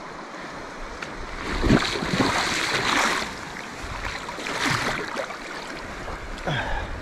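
Water swishing and splashing around waders as someone wades through a shallow river current, in two surges about two and five seconds in, over the steady rush of the river.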